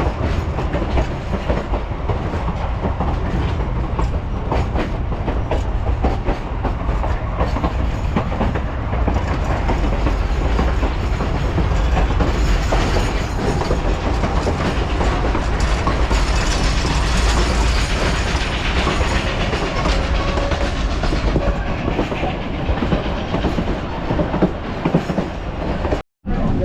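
Durango & Silverton narrow-gauge railroad passenger car in motion: a steady rumble with wheels clattering over the rail joints. The sound cuts out briefly near the end.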